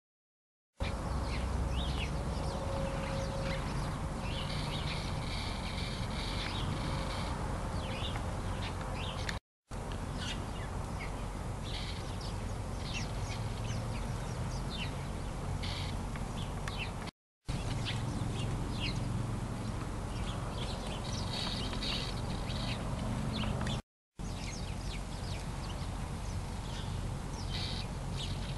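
Outdoor ambience with small birds chirping and twittering over a steady background noise. It starts about a second in, and the sound cuts out completely for a moment three times.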